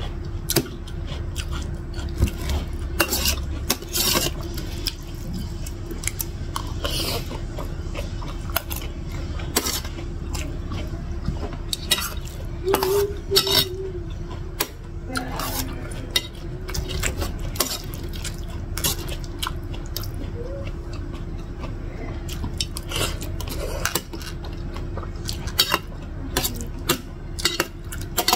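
Metal spoon clinking and scraping against an enamel plate as noodles are scooped up, in short irregular clicks.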